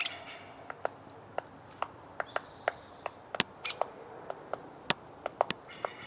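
Woodpecker pecking at a tree trunk: single sharp taps at an uneven pace, about three a second, not a drumming roll. A short buzzy bird call sounds about two and a half seconds in.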